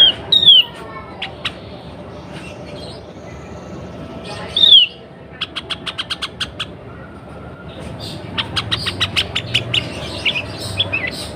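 Sooty-headed bulbul calls, presented as a female in breeding condition calling to males. Loud down-slurred whistled notes come at the start and again about four and a half seconds in, then a quick run of sharp chip notes, and from about eight seconds a faster chattering series, over a faint steady hum.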